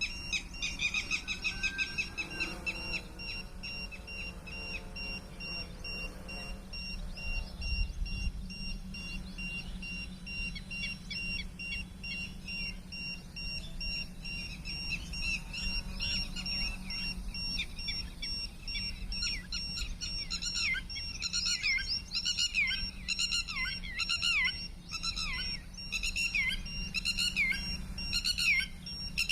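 Birds chirping in quick runs of short falling notes, sparse at first and busier in the last third, over a steady low rumble and a faint, constant high tone.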